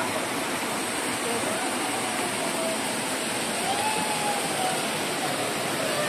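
Small waterfall cascading over rock ledges into a shallow pool: a steady rush of falling water.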